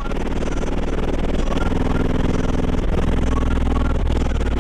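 Loud music from a truck's car audio system: four 18-inch DC Audio Level 6 subwoofers in a sixth-order blow-through enclosure, with deep bass dominating.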